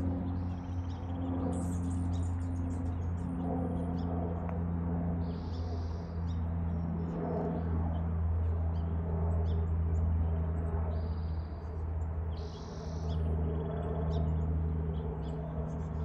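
Songbirds chirping and calling at intervals, short high calls every second or two, over a steady low drone.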